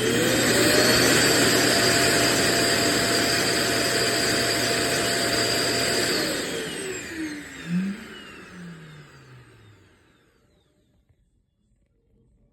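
Roomba j7+ vacuum motor running with a loud steady rush and a high whine, then winding down with a falling whine about six seconds in, fading out by about ten seconds.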